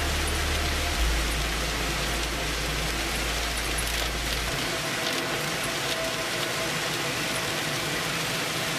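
Inside a moving car in the rain: a steady hiss of rain and tyre noise, with a low hum that cuts off about halfway through.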